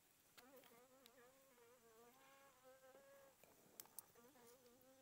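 Near silence with the faint buzz of a flying insect, wavering in pitch, starting about half a second in and fading near the end.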